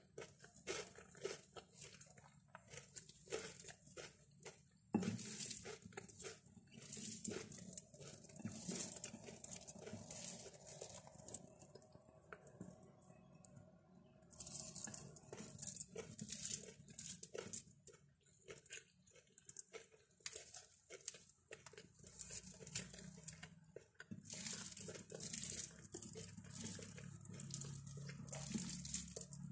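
Fingers mixing rice and curry by hand on a glass plate: irregular wet squishing and crackly ticks of food and fingertips against the glass, with one sharper click about five seconds in.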